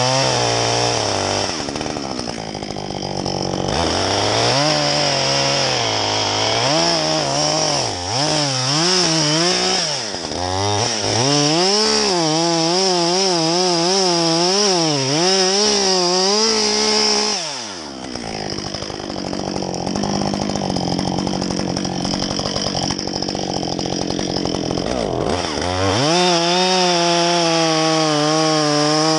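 Husqvarna two-stroke chainsaw making a felling cut through a thick tree trunk. Its pitch wavers up and down as the engine labours in the wood. It eases off about two-thirds of the way through, then revs back up to a high, steady pitch near the end.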